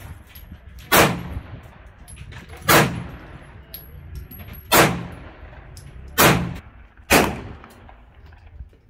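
Handgun shots: five loud, sharp shots at uneven intervals of about one to two seconds, each trailing off in a short echo, with fainter pops in between.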